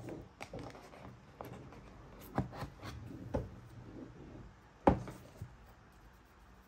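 Handling of a laptop's white packaging tray and its power adapter: soft rustling and scattered light knocks and clicks, with the sharpest knock about five seconds in.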